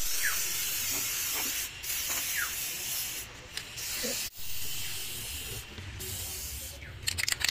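Aerosol can of tuf-kote cavity wax spraying through its thin extension straw: a steady hiss broken by a few short pauses.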